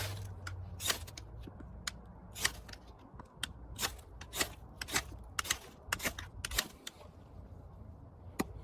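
A stainless knife blade scraped hard down a thick ferro rod over and over in quick, uneven strikes, each a short sharp rasp. The strikes stop about seven seconds in, with one last strike near the end.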